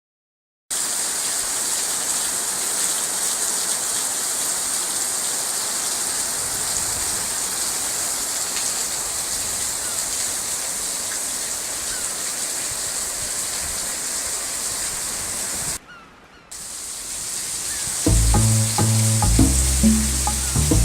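Steady desert monsoon rain falling, an even, dense hiss with no pauses in the downpour itself. The sound drops out briefly about three-quarters through, then the rain returns and music with a bass line starts over it near the end.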